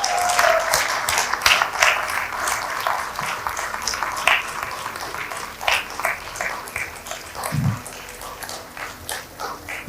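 Audience applauding, dense at first and thinning out toward the end.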